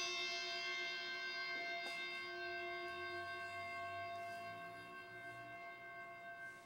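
A single struck note from a hand-held wooden-bodied instrument ringing on with many steady overtones, fading slowly and evenly.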